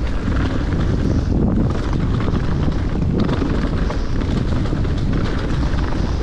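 Mountain bike rolling fast over rocky dirt singletrack: tyres crunching on stones and the bike rattling over the bumps, under steady wind buffeting on the camera microphone.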